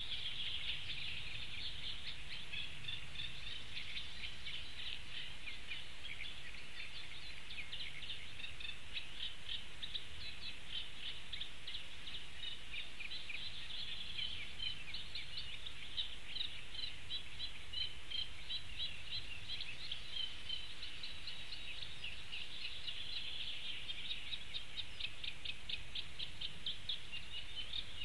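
Small birds singing a continuous, rapid chattering song of many short high notes in quick succession, over a low steady rumble.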